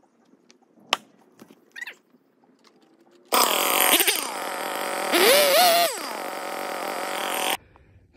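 A chainsaw's two-stroke engine runs loudly from about three seconds in, revving up and back down once midway, then stops abruptly. Before it there is only a single sharp knock about a second in and a few faint clicks.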